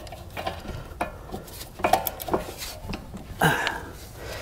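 Scattered metal clicks and clinks of a ratchet and 14 mm socket working on a rear brake caliper bracket bolt that is seized tight and will not break loose.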